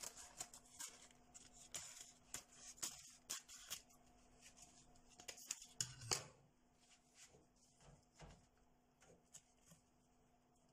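A thin sheet being peeled off by hand: faint rustling and crackling with small clicks, the loudest crackle about six seconds in, then it goes almost quiet.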